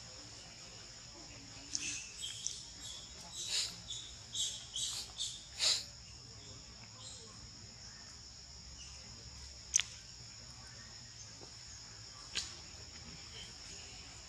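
Steady high-pitched insect drone, with a quick run of short high chirps a couple of seconds in and two more sharp single chirps later on.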